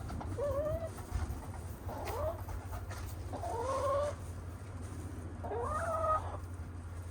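Hens calling: four drawn-out clucking calls that bend upward, one every second and a half to two seconds.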